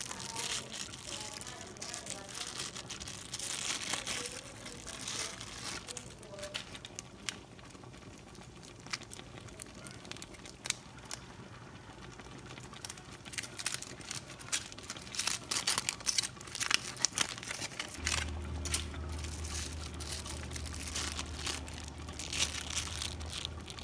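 Plastic bag crinkling and rustling in irregular bursts. A low steady hum comes in about three quarters of the way through.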